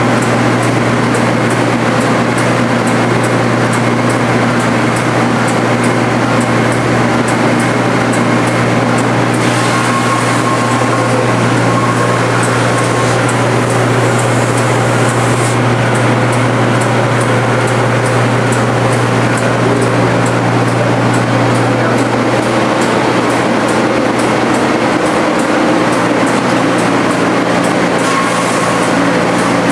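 Sandingmaster dual-head wide belt sander running under power, a loud, steady machine hum from its three-phase head motors and feed belt. About ten seconds in a higher hiss joins for several seconds as a board rides the feed belt through the sanding heads.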